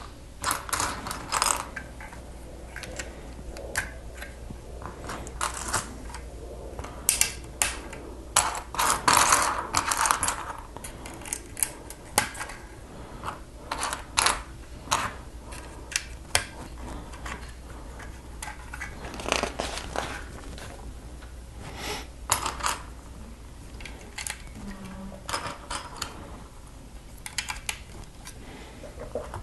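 LEGO plastic pieces clicking and clattering as they are handled and pressed together, irregular sharp clicks with a denser stretch of clatter about nine seconds in.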